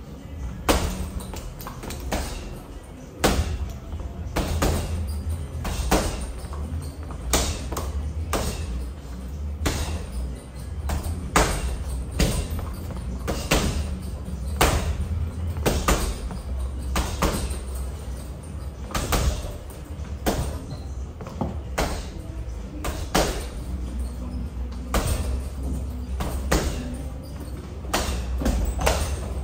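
Boxing gloves smacking a ball hung on a string, about one sharp slap a second at an uneven pace, over a steady low hum.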